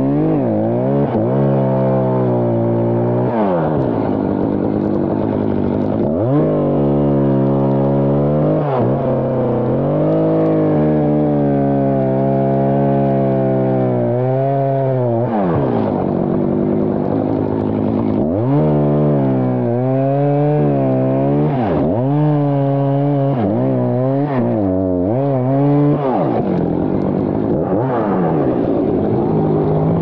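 Echo two-stroke chainsaw running at high revs, cutting through a tree trunk. Its engine note drops repeatedly as the chain bites into the wood and climbs back each time the load eases.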